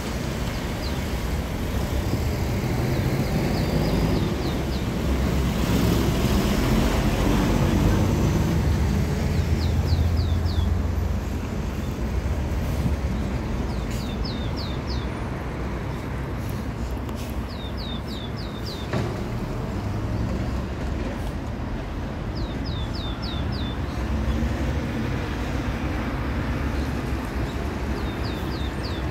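A small songbird calling in short, quick runs of three to five high notes that each fall in pitch, repeated every four or five seconds. A steady low rumble of road traffic runs underneath and swells for several seconds near the start.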